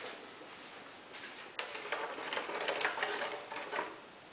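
Light irregular clicks and plastic rattling as a painted plastic body shell is fitted onto a nitro RC car's chassis.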